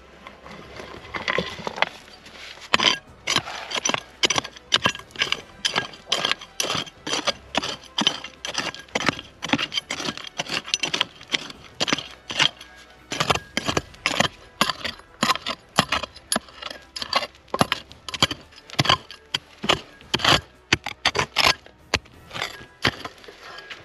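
A small hand pick striking and prying at dry, stony earth again and again, roughly two to three sharp knocks a second, with loose soil and pebbles scraping. The strikes start a couple of seconds in.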